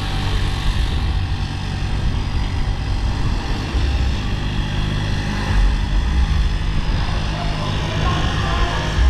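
A motor vehicle's engine running steadily with a low hum, under a haze of wind and road noise.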